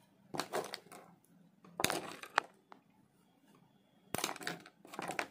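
Makeup containers being handled and knocked together off camera, in three short bursts of rustling and clicking: about half a second in, about two seconds in, and near the end.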